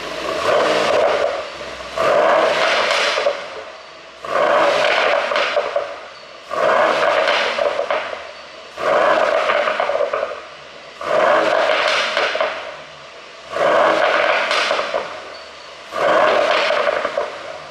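Mercedes-AMG E63's twin-turbo V8 revved in short blips about every two seconds, about eight times, each dropping back with exhaust pops and crackle from a pop-and-crackle tune.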